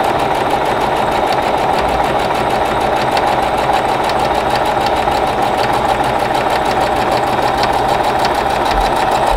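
Singer electric sewing machine running steadily at speed, its needle stitching a straight seam through two layers of quilting fabric in a fast, even rhythm.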